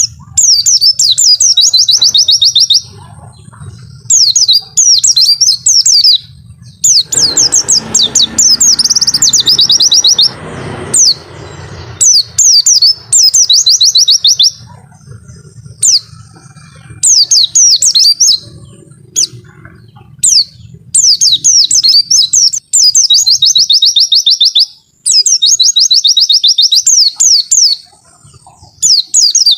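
White-eye (pleci) singing its long 'wit-wit' song: repeated bursts of rapid, high-pitched chirping notes, each burst a second or two long, separated by short pauses.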